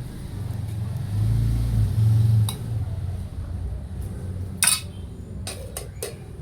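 A low rumble swells and fades in the first half. Then a sharp clink, like a lid or spoon knocking against a metal cooking pot, comes about two-thirds of the way in, followed by a few lighter clinks of dishes.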